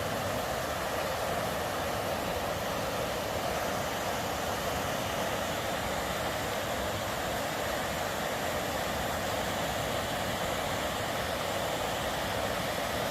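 River rapids: whitewater rushing over rock in a steady, unbroken roar.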